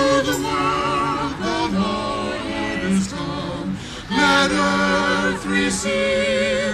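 Mixed a cappella quartet, two women's and two men's voices, singing a Christmas carol in harmony, holding long notes with vibrato, with a short breath between phrases a little after halfway.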